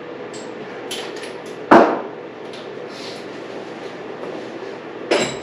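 Metal tools clanking while working on a dirt bike's rear brake: a loud sharp knock a little under two seconds in and a second, ringing metallic clank near the end, with small clicks between, over a steady hum.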